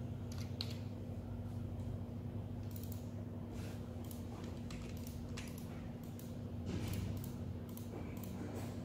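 Scattered short clicks from a computer mouse and keyboard, irregular and a few per second at most, over a steady low hum.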